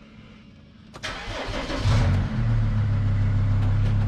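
2006 Mercedes Sprinter van engine being started: the starter cranks about a second in, the engine catches within a second and settles into a steady idle.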